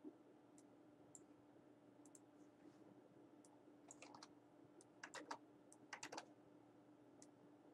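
Faint computer keyboard typing: scattered single key clicks at first, then three short runs of keystrokes in the second half, over a faint steady hum.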